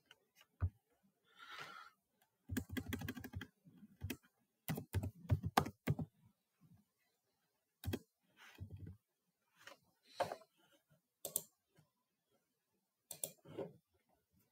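Computer keyboard being typed on in short, irregular bursts of keystrokes with pauses between them, as a web address is typed.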